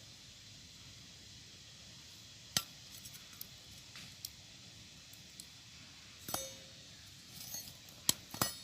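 A few sharp metallic clinks and taps at irregular intervals, one of them followed by a short ringing tone; the loudest two come close together near the end.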